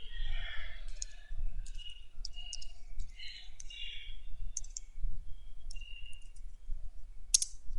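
Faint computer-keyboard key clicks, about a dozen irregular taps, as digits are typed.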